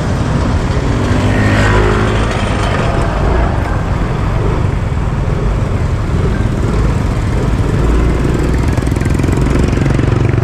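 Motor vehicle running on the road: a steady low engine rumble with wind and road noise. A brief engine note rises and falls about two seconds in.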